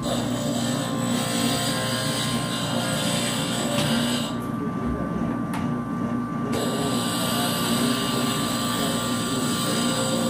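Steady mechanical drone with a low hum and a faint high whine; its hiss thins for a couple of seconds midway.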